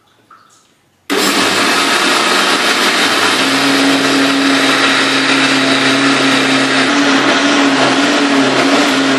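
Laxmi Hunk electric mixer grinder switched on about a second in and running steadily at full speed with a constant hum. It is wet-grinding soaked rice and chana dal with onion, chilli, garlic, ginger and a little water into batter in its stainless steel jar.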